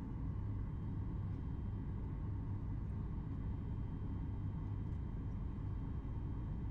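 Steady cabin noise inside a Boeing 737 MAX 8 airliner: a constant low rumble with a faint steady engine whine.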